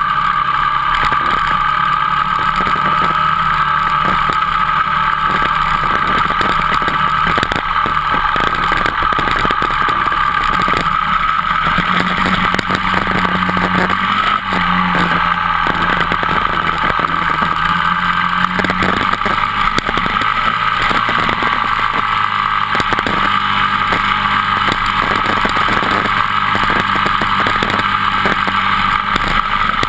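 Dirt bike engine running steadily at cruising speed on a gravel road, heard up close from the bike itself.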